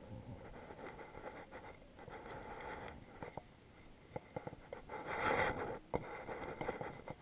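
Faint rustling and scraping of clothing close to the microphone, with scattered small clicks and a louder rustle about five seconds in.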